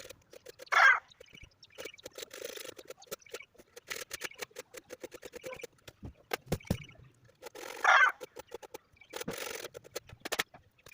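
Two short, loud animal calls about seven seconds apart, over scattered clicks and knocks.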